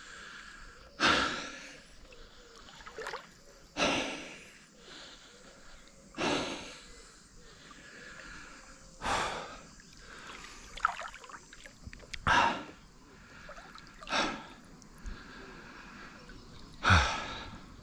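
A swimmer breathing hard in time with the strokes, close to the microphone: a sharp gasp or splash about every two to three seconds, seven in all, with faint water sloshing between.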